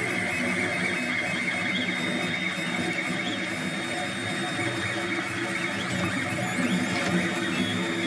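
Monoprice Select Mini 3D printer running mid-print: its stepper motors whine in shifting tones as the print head moves, over a steady whir.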